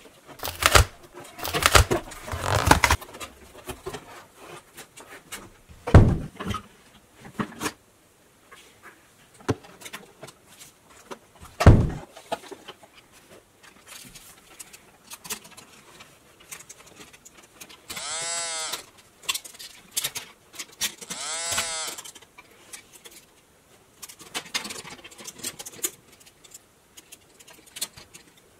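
Cardboard toy box and plastic transforming toy being handled: rustling and clicks at first, then two sharp knocks, about six seconds apart. About two-thirds of the way in come two short pitched sounds, each about a second long, rising and falling in pitch.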